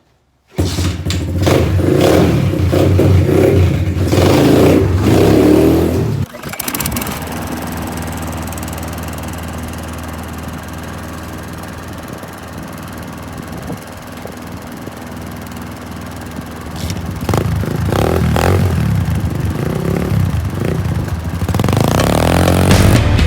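Pit bike engine revving hard for the first few seconds, then running more steadily at lower revs, and picking up again later on.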